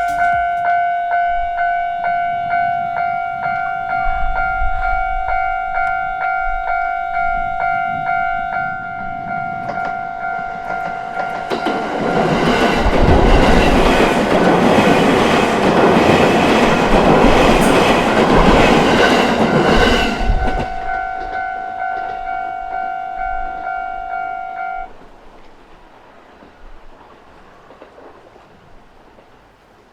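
Japanese railway level-crossing alarm ringing with a rapidly repeating electronic two-tone ding. From about 11 s to 20 s a JR Togane Line electric train passes over the crossing, and its rumble and wheel clatter on the rails are the loudest part. The alarm stops about 25 s in.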